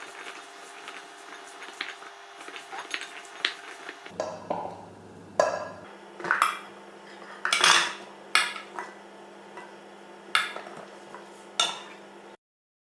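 Metal baking pan and utensils clinking and clattering, with a handful of sharper metallic clanks in the second half. The sound cuts off suddenly near the end.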